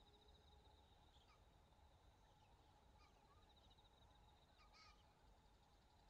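Near silence with a faint outdoor background: an insect trills steadily with rapid even pulses, and a few brief, faint bird calls come through, the clearest near the end.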